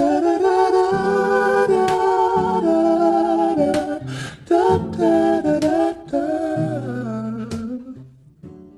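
Background music: a song with a singer humming a wordless melody over low bass notes, fading out near the end.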